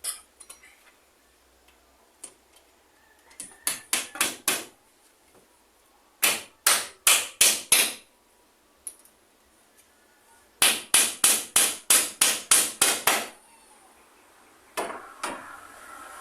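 Hammer driving nails: three runs of quick blows, about four a second, the longest run about a dozen strikes, then two single blows near the end.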